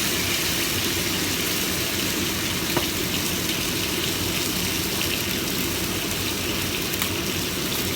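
Steady sizzling of pigeon frying in hot oil, with a couple of faint ticks.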